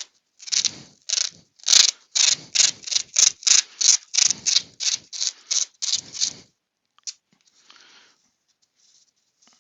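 Adhesive tape being pulled off its roll in a quick run of short rasping pulls, about three to four a second, as it is wrapped around a turned piece; the pulls stop after about six seconds and only faint handling follows.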